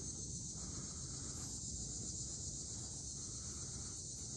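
Steady high-pitched chorus of insects droning in the woods, with a low rumble beneath it.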